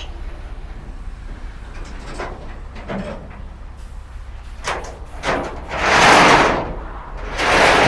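Heavy machinery at work: a steady low engine rumble, with a few faint knocks and then two loud rushing swells of noise, each about a second long, near the end.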